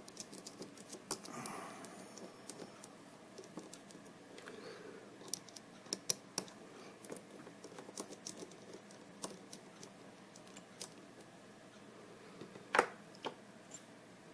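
Scattered small metallic clicks and taps from handling lock-picking tools and a Sargent mortise lock cylinder, irregularly spaced, with one sharper, louder click near the end.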